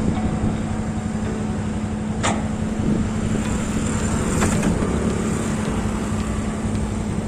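Excavator's diesel engine running steadily, with two brief sharp noises about two seconds and four and a half seconds in.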